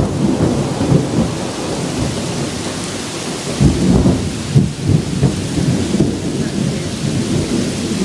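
Heavy downpour of rain pouring steadily, with deeper rumbling surges about halfway through.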